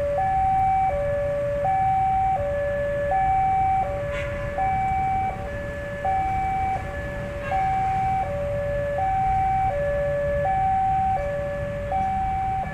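Level-crossing warning alarm sounding while the barrier is closed for an approaching train: an electronic two-tone signal alternating evenly between a higher and a lower tone, each held about half a second, over a low background rumble.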